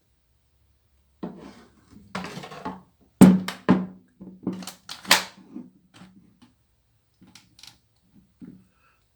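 A run of knocks and clunks from hard objects being handled and set down, irregular and loudest about three seconds in, with a dull ring under the heavier knocks.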